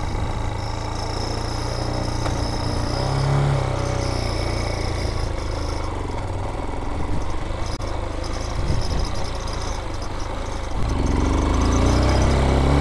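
BSR Raven 250's 229cc air-cooled single-cylinder engine running as the dirt bike rolls off on sand, with a brief rev about three seconds in and louder acceleration near the end.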